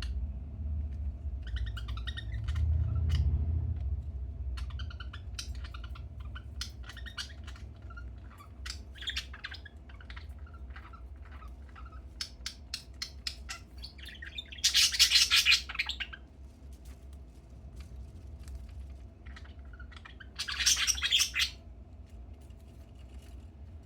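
Budgerigar chirping and chattering in short scattered notes, with two louder harsh bursts about fifteen and twenty-one seconds in.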